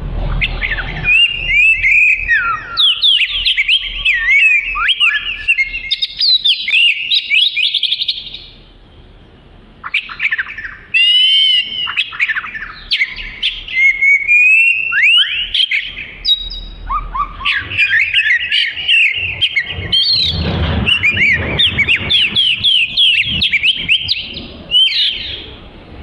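Oriental magpie-robin singing a long, varied song of clear whistles, slurred notes and rapid trills, with a short pause about eight seconds in.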